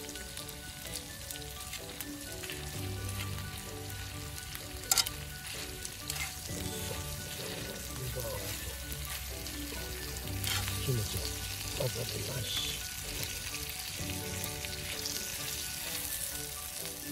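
Pork liver and kimchi sizzling steadily in an iron frying pan over a wood fire, stirred with metal tongs that scrape against the pan now and then. There is a sharp click about five seconds in.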